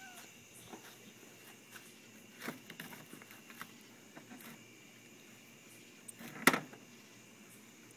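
Faint scattered taps and rustles, with a small knock about two and a half seconds in and one sharp knock about six and a half seconds in.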